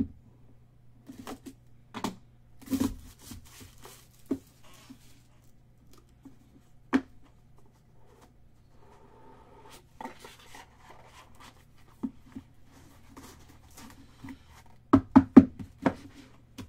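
Trading card packaging being handled and opened by hand: scattered clicks, short rustles and tearing of wrappers, with a quick cluster of sharp clicks near the end. A steady low hum sits underneath.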